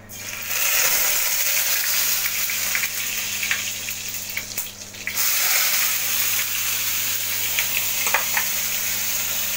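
Onion paste frying in hot oil with whole spices: a loud, steady sizzle with scattered crackles, starting about half a second in as the paste goes into the pan.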